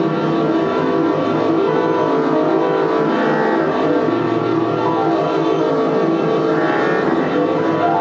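Improvised ensemble music for tenor saxophone, bass clarinet and piano with electronic processing. A dense, buzzing low drone pulses rapidly under layered held tones.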